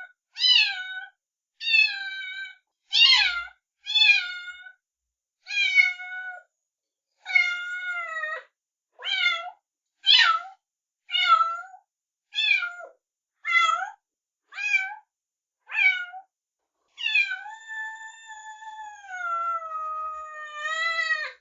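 Kitten meowing: about thirteen short, high meows roughly a second apart, each falling in pitch. Near the end comes one long, drawn-out meow of about four seconds that slides slowly down.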